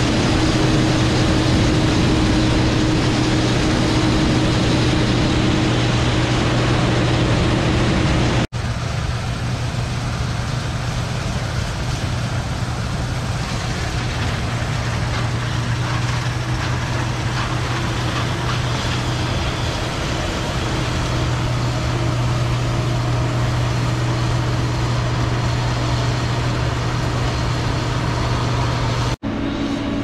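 A Case IH Axial-Flow combine harvester running steadily while harvesting, with a continuous low engine hum. The sound cuts out for an instant about eight seconds in and again near the end, where the footage changes to another clip of the machine.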